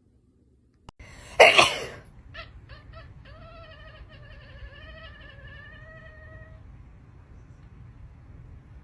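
A domestic cat's voice: a loud harsh burst about a second and a half in, a few short calls, then one long wavering meow lasting about three seconds.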